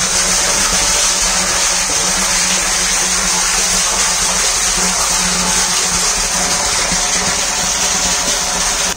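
Water pouring from a 1-inch inlet pipe into a partly filled plastic water tank, a steady splashing rush of the stream striking the water as the tank fills. A steady low hum runs beneath it.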